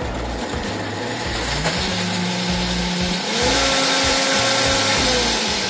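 KitchenAid K400 blender's 1200-watt motor chopping drained chickpeas, its pitch stepping up twice as the speed is raised from 1 toward 5, then starting to wind down near the end.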